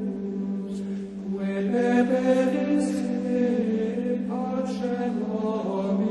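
Background music of sung chant: voices moving from note to note over a steady held low note.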